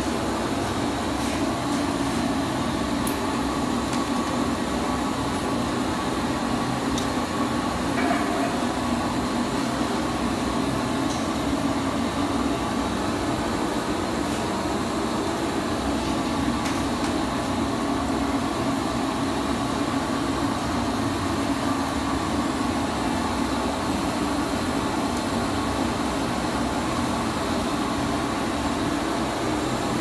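Air-powered tire buffer running steadily against a truck tire's rubber, roughing it for a patch: a constant whirring hiss.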